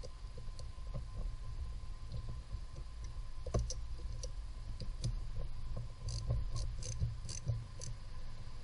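Socket ratchet clicking in short runs as it is worked on a fastener by the heater control valve, starting about three and a half seconds in, over a steady low hum.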